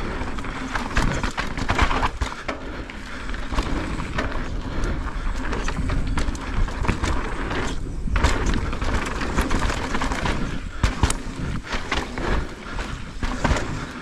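Santa Cruz Megatower full-suspension mountain bike riding down a dirt trail: tyres rolling over the ground with frequent knocks and rattles from the bike over bumps, and wind rushing on the camera's microphone.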